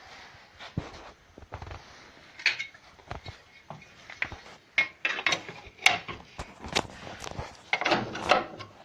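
Irregular metallic knocks and clinks of steel pieces being handled and set against each other, coming thicker and louder in the second half.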